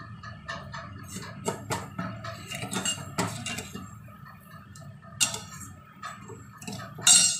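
Metal spoon stirring sugar and water in a metal pan, clinking and scraping against the pan irregularly, with a sharper clink about five seconds in and a loud one near the end.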